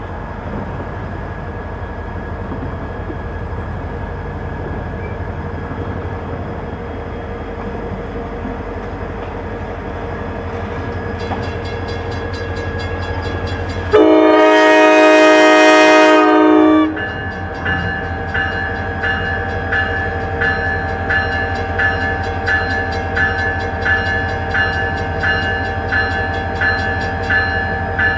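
Diesel locomotive set (CSX road slug and GP40-2) rumbling steadily as it approaches at low speed. About halfway through, the horn sounds one chord-like blast of roughly three seconds. From around then on a bell rings steadily about once a second as the locomotives roll past.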